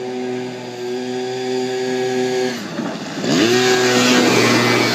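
Apache quad bike's engine running at a steady pitch, then dropping off briefly and revving back up sharply about three seconds in. It is louder from there, with a noisy rush over the engine note, as the quad comes close.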